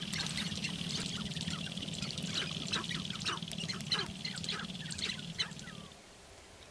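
Male sharp-tailed grouse dancing on a lek: a fast, steady drumming rattle of stamping feet and rattling tail feathers, with many short clucks and squawking calls over it. The dance sound stops abruptly near the end, leaving a few scattered calls.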